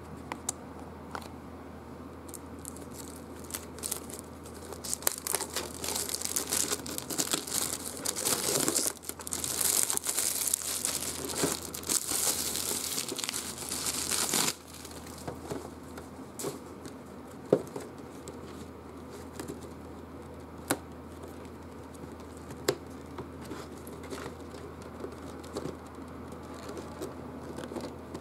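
Clear plastic shrink wrap being torn and peeled off a cardboard game box. It crinkles loudly for about ten seconds, then stops abruptly. Scattered light taps and rustles come before and after.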